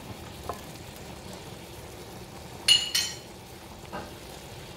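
Chicken in tomato-and-chili sauce sizzling and bubbling steadily in a stainless-steel skillet, with one sharp metallic clink of a utensil against metal a little past halfway.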